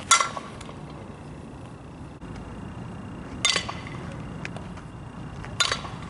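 Fastpitch softball bat hitting softballs three times, each a sharp ping with a brief ring; the first hit is the loudest, and the others come about three seconds and five and a half seconds later.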